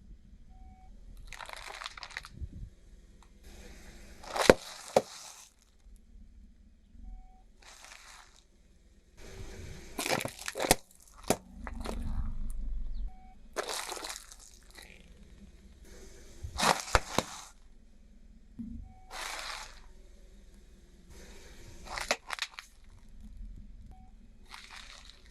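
Car tyre rolling over and crushing crunchy objects: a series of crunching and breaking episodes every two to three seconds, with sharp cracks among them, over a faint low rumble.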